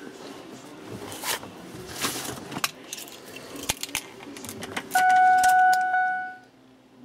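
Keys jangling with scattered clicks and rattles as the truck's key is handled, then a loud steady electronic beep lasting about a second and a half near the end.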